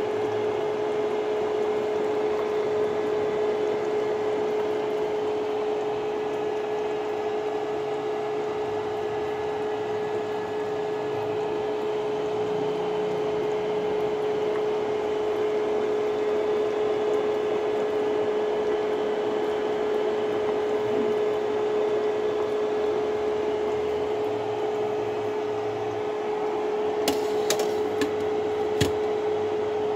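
Steady kitchen-appliance hum with one constant tone. Near the end, a few sharp clinks as a utensil strikes the metal cooking pot.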